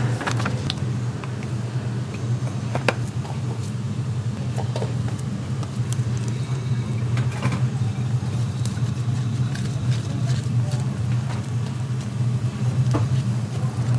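A steady low hum with light clicks and knocks scattered over it.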